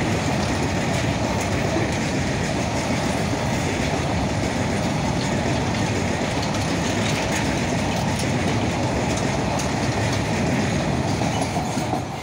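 Freight train of covered wagons running past at speed: a steady rumble of steel wheels on the rails, with clatter as the wheels cross rail joints. The noise falls away right at the end.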